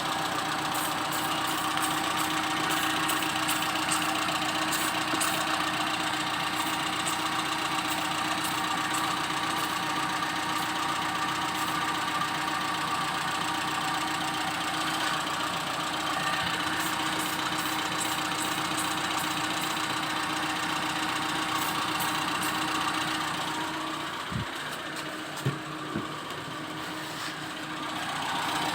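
Freshly overhauled Suzuki Karimun Kotak engine idling steadily, with a fine ticking over the running. Near the end the engine note drops a little, and there are two short knocks.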